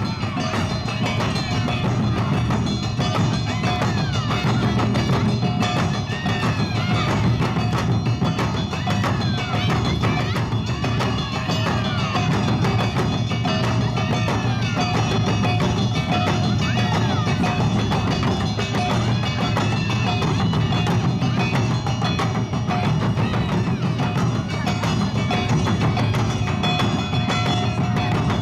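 Awa Odori festival band playing a steady, driving two-beat rhythm on drums and a small metal gong, with melody instruments over the top.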